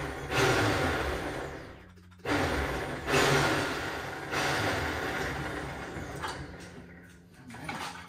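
Electric winch on an overhead hoist running in short spells, stopping and restarting a few times as it lowers a heavy outboard motor onto the transom brackets. It fades out near the end.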